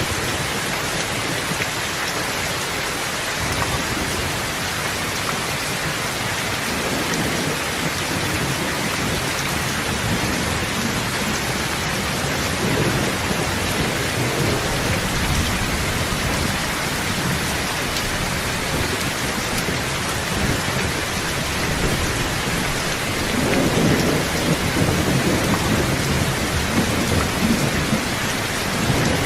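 Steady rain falling, with low rolling thunder rumbling under it. The thunder swells twice, the second time louder, for several seconds near the end.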